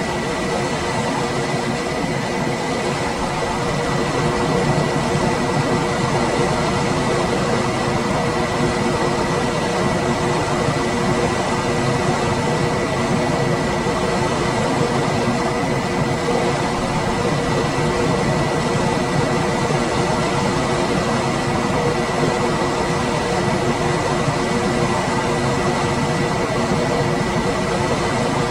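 Room air conditioner running steadily: an even rush of air over a low motor hum, with a faint constant high whine.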